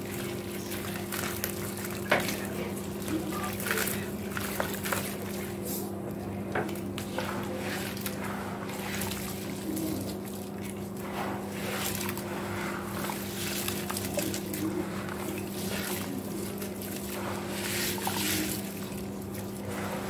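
Gritty white cement crumbled by hand into a basin of water and squeezed and swished through it: wet splashing, sloshing and dripping with a gritty crunch, over a steady low hum.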